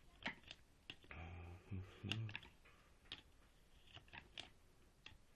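Scattered light clicks and taps of tools and metal parts as bolts are undone on a washing machine motor. The clicks come about a second apart, with a brief low grunt or murmur from the worker near the middle.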